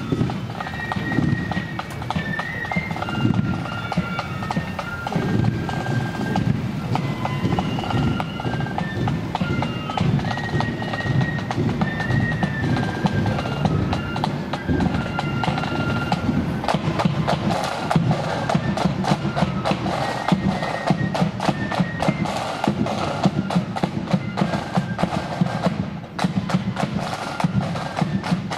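Marching flute band playing: flutes carry a melody over bass and snare drums. About halfway through, the snare drumming grows loud and busy with fast, close-packed strokes.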